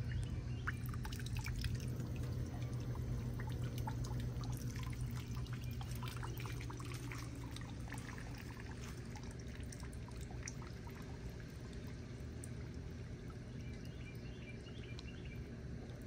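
Bard 3-ton wall-hung heat pump winding down at shutdown in cool mode: liquid trickling and dripping with scattered light ticks over a steady low hum that slowly fades.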